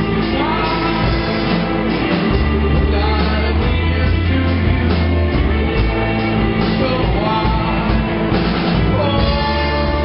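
A live rock band playing: a man singing held, sliding notes over electric guitars, bass guitar and drum kit.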